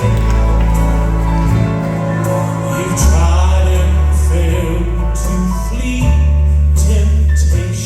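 Gospel quartet of men's voices singing in harmony over band accompaniment, with long held bass notes and cymbal splashes.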